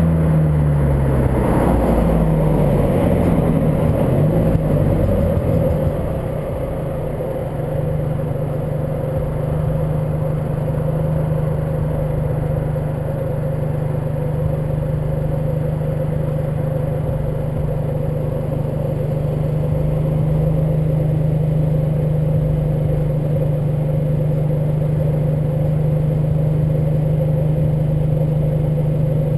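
Volkswagen Golf GTI Mk5 2.0T FSI engine running on the move, with heavy wind and road noise. The engine pitch changes several times in the first few seconds, then settles into a steady drone.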